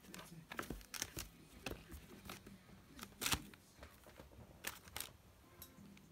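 Newspaper crinkling and rustling in short, irregular scrapes as a kitten scrambles and paws at it in a plastic carrier, with one sharper crackle about three seconds in.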